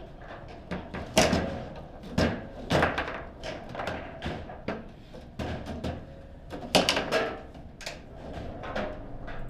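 Table football (foosball) in fast play: a quick, uneven run of sharp knocks and clacks as the figures strike the ball and the rods bang against the table, with loud hits about a second in and near seven seconds.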